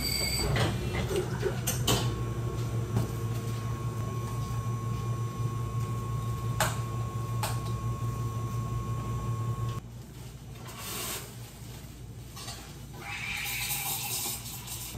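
A cafe machine's motor hums steadily, with a couple of sharp clicks, then cuts off abruptly about ten seconds in. Near the end comes a short hiss.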